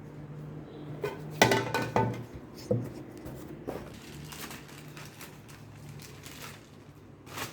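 Parts of a bullet blender being handled: its jars, cups and blade pieces knock and clink together a few times, the loudest clack about a second and a half in, over a low steady hum.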